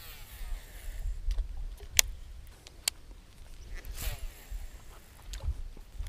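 Baitcasting reel's spool whirring as line pays out on a cast, falling in pitch as the spool slows, twice: at the start and again about four seconds in, with a few sharp clicks between. Wind rumbles on the microphone underneath.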